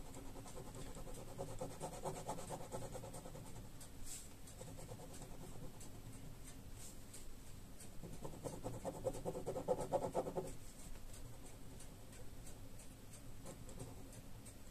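Ballpoint pen scratching on paper in quick back-and-forth hatching strokes, in two spells of a couple of seconds each: one about two seconds in, the other from about eight to ten seconds in.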